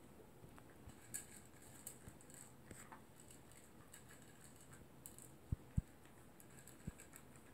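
Poodle eating dry kibble from a bowl: faint crunching and small scattered clicks of food and teeth against the bowl, with three short dull thumps between about five and a half and seven seconds in.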